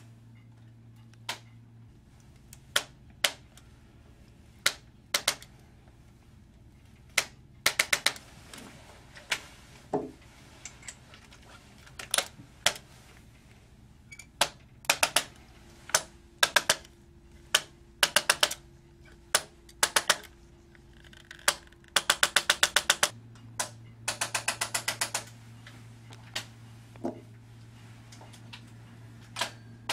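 Electric Impulse chiropractic adjusting instrument clicking as it thrusts into a patient's spine. Sharp single clicks come a second or two apart, with a few quick clusters and two fast runs of a dozen or so clicks about three-quarters of the way through.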